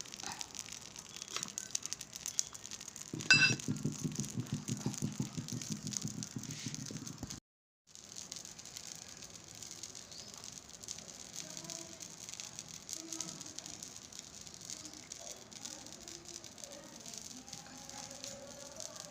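Objects being handled: rattling and clicking with one ringing clink about three and a half seconds in, then, after a brief break, a fainter steady crackle.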